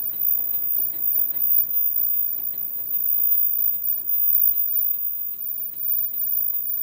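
Automatic disposable face-mask making machine running: a steady mechanical hum with rapid, evenly spaced ticking, several ticks a second.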